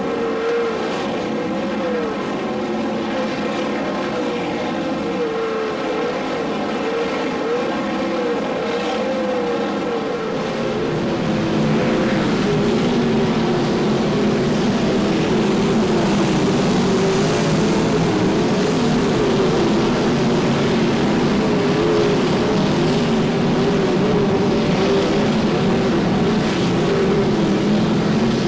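Winged sprintcars' V8 engines running hard around a dirt oval, their pitch wavering up and down as the cars throttle through the turns. About ten seconds in the sound gets louder and lower-pitched and stays that way.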